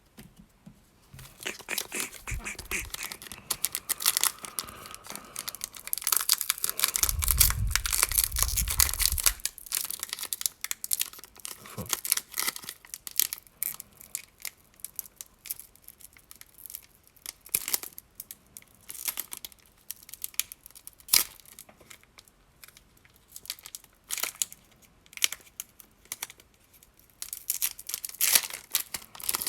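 Foil booster pack wrapper being torn open and crinkled by hand, in irregular crackling bursts, with a low rumble for a couple of seconds about seven seconds in.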